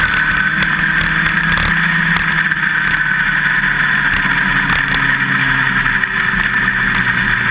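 USAC midget race car engine running at racing speed, heard from a camera mounted on the car, its pitch staying nearly steady throughout.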